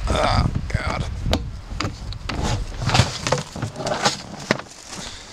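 Knocks, scrapes and crunches as a snow-covered plastic rubbish bin is opened: the cord is unhooked and the lid is pulled off, with packed snow crunching and the plastic knocking in sharp, irregular clicks.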